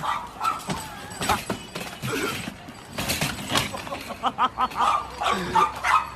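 A small dog yipping in short, quick high calls among sharp clattering knocks.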